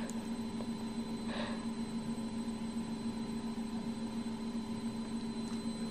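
Steady electrical hum of room tone, several constant tones with a low one strongest, with a brief faint hiss about a second and a half in.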